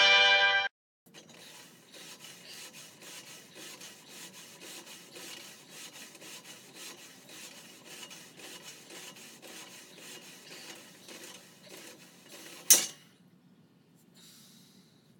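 A short musical sting cuts off within the first second. Then a steady rubbing, rasping noise runs through a set of barbell bench presses. It ends in one sharp metal clank, the barbell set back onto the rack.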